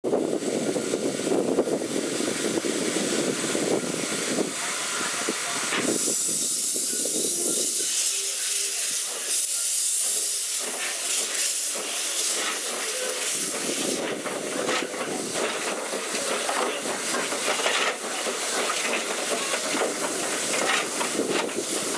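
Steam locomotive Renishaw Ironworks No6 pulling away, heard from on board the train: a loud hiss of steam from about six to thirteen seconds in, with the low rumble and knocking of the moving train before and after it.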